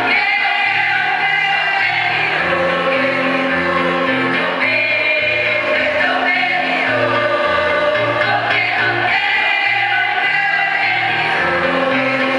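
A choir singing in several parts, holding long chords that change from one to the next.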